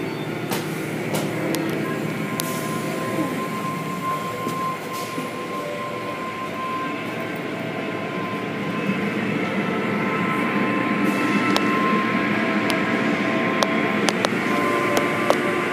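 Automatic tunnel car wash running: a steady mechanical roar of spraying water, motors and spinning cloth brushes and strip curtains slapping over a car, with a steady whine throughout and a few sharp knocks near the end.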